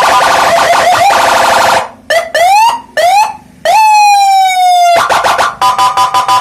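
Senken electronic siren sounding through a 10-watt TOA horn speaker, stepping through its tones: a harsh buzzing tone, then three short rising whoops, a long tone that falls slowly in pitch, and rapid short pulses near the end.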